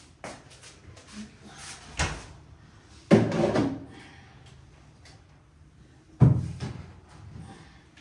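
Kitchen cupboard doors and jars being handled: a light knock about two seconds in, a louder knock with a short rattle about three seconds in, and another sharp knock about six seconds in.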